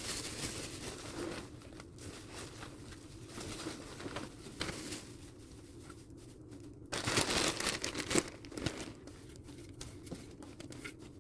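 Paper bedding and cardboard rustling and crinkling as hands work it around in a mouse tank, with a louder stretch of crackling about seven seconds in.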